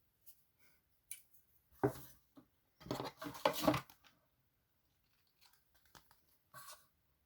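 Close-up handling noises of a box and its contents being unpacked: scattered clicks, taps and rustles, busiest between about two and four seconds in.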